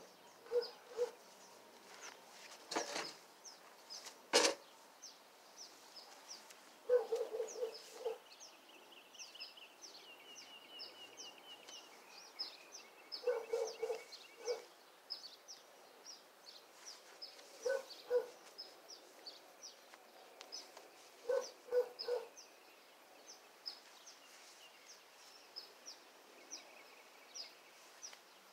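A dog barking in short bursts of three or four barks, five or so times, while small birds chirp high and steadily throughout. Two short sharp noises, like a knock or rustle, come about three and four and a half seconds in.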